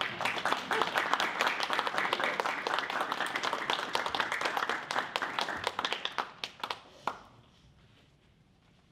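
Audience applauding, the clapping thinning out and stopping about seven seconds in.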